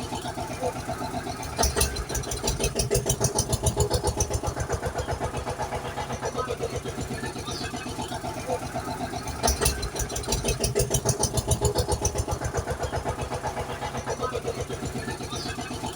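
Vehicle engine sound effect: an engine starting and running with a rapid steady chug, the same clip repeating about every eight seconds.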